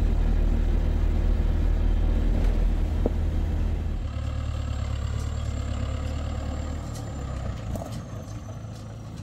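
Heavy vehicle engine running with a steady low rumble. It drops in level about four seconds in and dies away toward the end.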